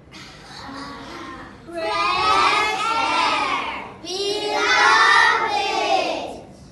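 A group of children's voices singing in unison during choral speaking practice: a quieter opening line, then two long, loud sustained phrases.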